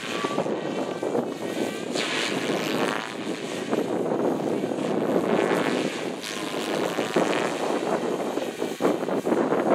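Radio-controlled model airplane's engine and propeller buzzing in flight overhead, the sound swelling and fading as the plane manoeuvres.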